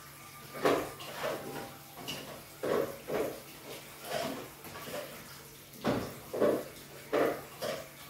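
Pots and metal utensils clinking and scraping on a wood-burning stove's cooktop: a string of short, irregular knocks and scrapes, some half a second apart, others a second or more.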